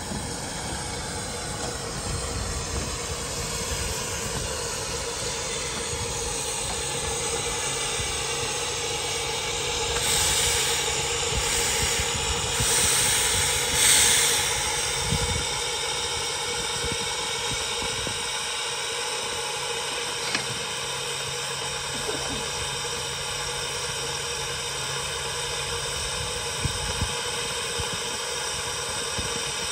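Romney, Hythe & Dymchurch Railway 15-inch gauge train running, with a steady rumble, hiss and a held tone. About a third of the way through, a few louder bursts of hiss come in quick succession.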